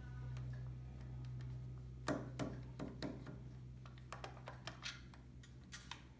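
Screwdriver clicking and scraping against the plastic case of a DeWalt 12-volt NiCd drill battery pack as its screws are worked loose: a few light, irregular clicks starting about two seconds in, over a steady low hum.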